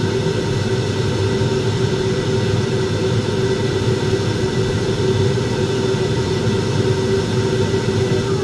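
AO Smith commercial gas boiler running with its new combustion blower motor: a steady low rumble with a constant hum on top, the boiler working again after the blower-motor replacement.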